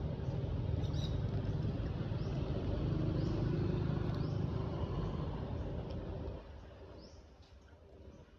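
A steady low rumble, such as an engine or traffic, that drops away about six seconds in. Short high bird chirps sound now and then over it.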